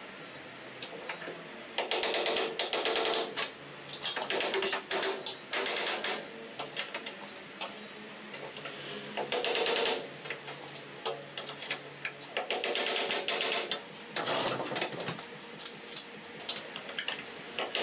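A hand tool working fasteners on the bus's metal door trim, making about five bursts of rapid clicking, each a second or so long, with short pauses between.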